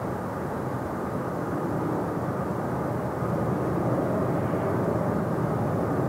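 Distant BNSF freight diesel locomotives and their double-stack intermodal train running by, a steady low rumble that grows a little louder about halfway through.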